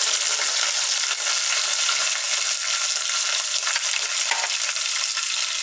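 Tadka of curry leaves, mustard seeds and fenugreek seeds sizzling in hot ghee: a steady hissing sizzle with faint scattered crackles.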